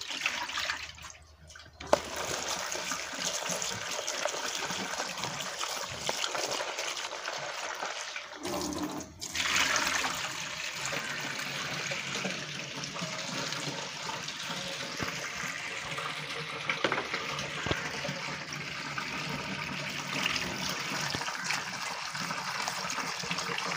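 Salt water splashes out of a plastic basin of mustard greens into a stainless steel sink. Then a kitchen tap runs steadily into the sink from about two seconds in, with a short break around eight seconds. The greens are rinsed in a steel bowl under the running tap.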